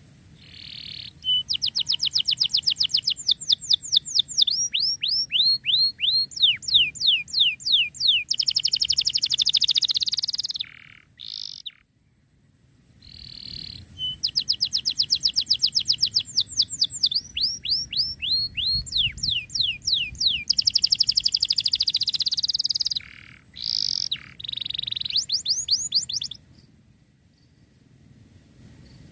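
Domestic canary singing in two long bouts of fast trills and rapid downward-sweeping notes, with a short pause between them about eleven seconds in.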